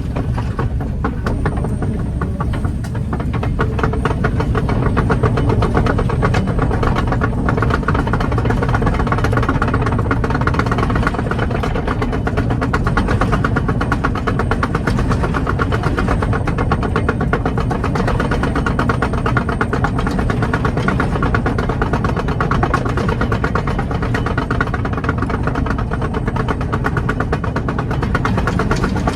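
Kobelco 20-tonne excavator running steadily as it tracks over ash, its diesel engine and crawler tracks going without a break.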